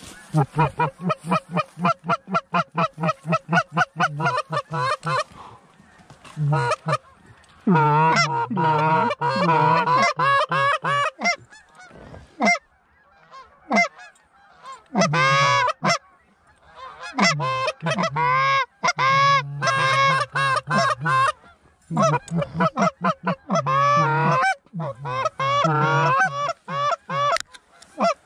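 Goose calling: a fast run of short clucks for about the first five seconds, then several loud series of wavering honks that rise and fall in pitch, with short pauses between the series.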